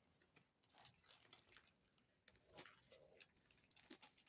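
Near silence with a few faint, scattered clicks and small rustles of little plastic bags of diamond-painting drills being handled.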